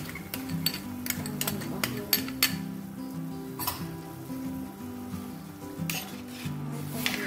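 Tom yum soup bubbling in a clay pot while a metal ladle stirs it, with scattered sharp clinks of the ladle against the pot. Background music with a slow melody plays throughout.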